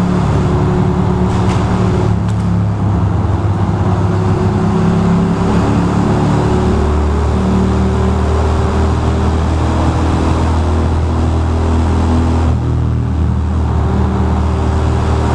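Ducati Monster 620's air-cooled V-twin engine running at a steady cruise, heard from the rider's position with wind and road noise over it. Its pitch shifts a few times, settling lower about six seconds in.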